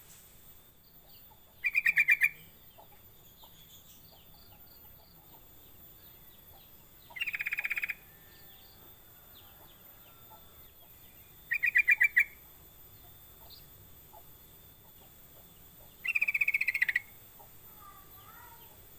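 Yellow-vented bulbul (trucukan) calling: four short bursts of quickly repeated notes, spaced a few seconds apart.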